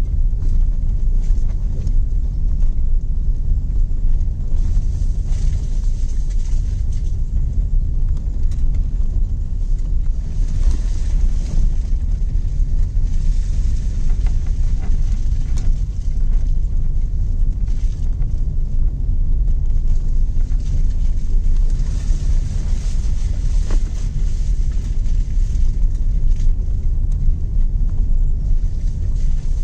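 Cabin noise of a Tata Tiago hatchback driving on a rough, wet dirt track: a steady low rumble of engine and tyres, with hiss that rises and falls now and then.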